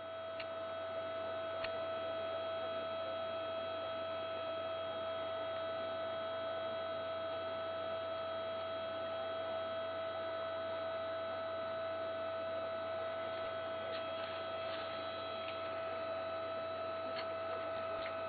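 A steady electrical hum at one fixed pitch, with fainter steady tones above it, and a few faint ticks near the end.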